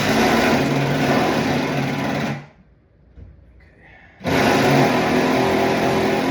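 Power drill boring a hole through a floor joist, its motor running loud and steady under load. It stops about two and a half seconds in, then starts drilling again a little over a second and a half later.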